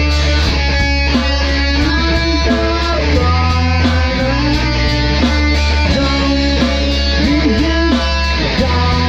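Rock music: electric guitar playing over a sustained bass and a steady beat, with a few bent guitar notes near the end.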